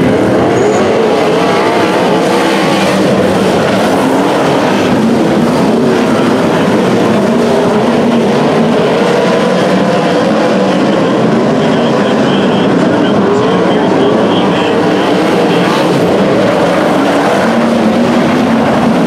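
A pack of sprint cars racing on a dirt oval, many engines running at once, their overlapping notes wavering up and down as the cars lap the track.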